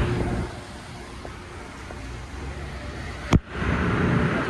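Car wash air dryers blowing, a low rushing noise that drops away about half a second in and then carries on more quietly. A single sharp click comes near the end, after which the blowing returns at full strength.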